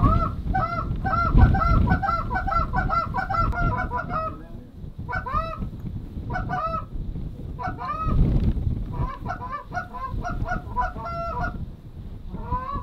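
A flock of geese honking overhead, many rapid overlapping honks that thin out midway and then pick up again, with wind gusting on the microphone underneath.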